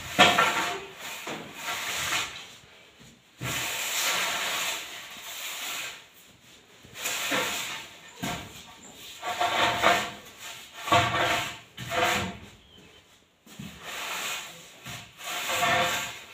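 A long straightedge scraping across a freshly laid sand-cement floor screed as it is drawn over the surface to level it. The strokes come one after another with short pauses between them.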